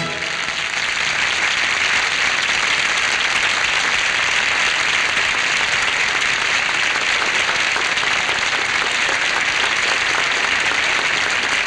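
A studio audience applauding steadily.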